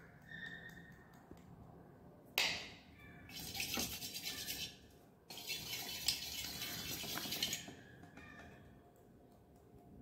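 A sharp knock about two and a half seconds in, then melted candle wax being poured into a candle mould in two steady hissing stretches of a couple of seconds each.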